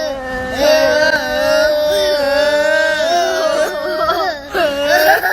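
A high voice holding long, wavering, drawn-out notes, singing or wailing, with a short break about four seconds in.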